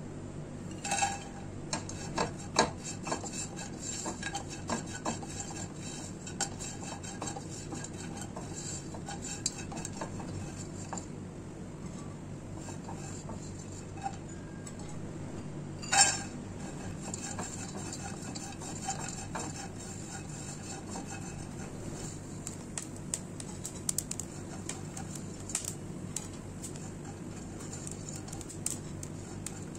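Dry coconut slices clattering into an empty nonstick pot, then stirred and scraped against it with a slotted spatula: irregular clicks and scrapes, busiest in the first few seconds, with one loud knock about halfway through. A steady low hum runs underneath.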